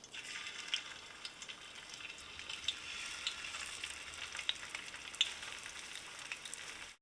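Hot olive oil sizzling steadily in a frying pan over high heat, with scattered sharp pops and crackles. It cuts off abruptly just before the end.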